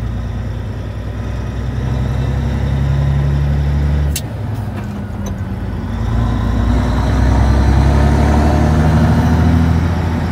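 Kenworth W900A truck's diesel engine heard from inside the cab, pulling up through the gears: it climbs in pitch, drops off sharply about four seconds in with a sharp click as a gear is shifted, then climbs again.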